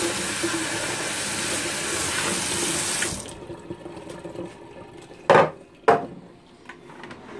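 Kitchen tap running into a stainless steel sink as a clear plastic juicer part is rinsed under the stream, cutting off suddenly about three seconds in. About two seconds later come two sharp knocks about half a second apart.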